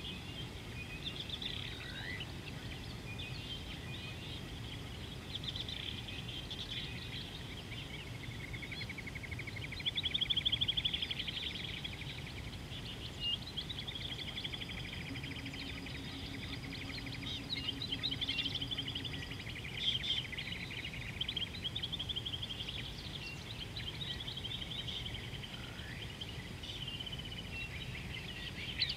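Several wild birds chirping and trilling, with a louder rapid trill about ten seconds in, over a steady low outdoor rumble; a faint low hum comes in briefly around the middle.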